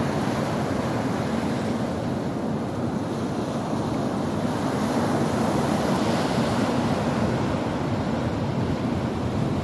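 Ocean surf: waves washing and breaking on the shore in a continuous rush, swelling a little about five seconds in.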